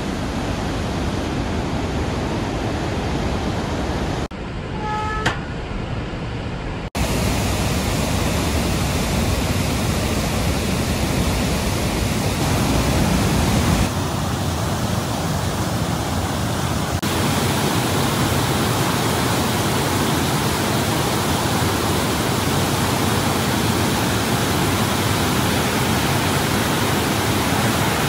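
Rhine Falls' roar: a dense, steady rush of falling water that breaks off and resumes abruptly a few times. A brief high tone sounds about five seconds in.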